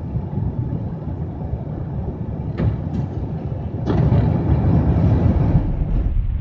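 Airbus A350 taking off, heard from inside the cabin: a steady rumble of the Rolls-Royce Trent XWB engines and the runway as it lifts off, with two thumps about two and a half and three seconds in. From about four seconds in it grows into a louder rush of engine and air noise during the climb.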